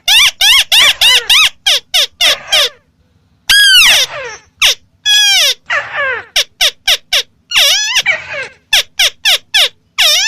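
White-browed crake calling: rapid runs of short notes that each rise and fall in pitch, about four a second. The runs are broken by brief pauses, with a few longer drawn-out calls in the middle.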